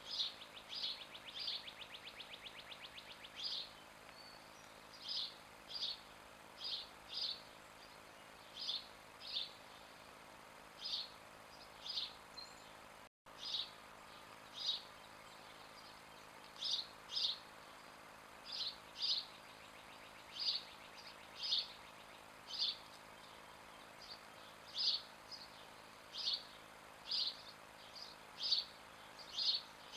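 A bird calling over a steady outdoor background: a short high note repeated every second or two, often twice in quick succession, with a fast high trill under it for the first few seconds. The sound cuts out for an instant about halfway through.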